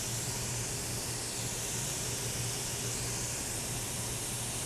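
Steady hiss with a low electrical hum underneath, unchanging throughout.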